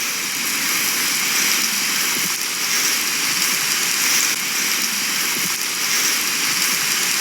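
Steady hiss of rain falling, with no distinct events.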